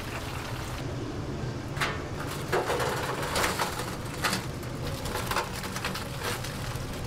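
Crisp-fried chicken pieces tipped from a wire fry basket into a perforated stainless-steel tray, giving a series of crunchy knocks and rattles over a steady kitchen background.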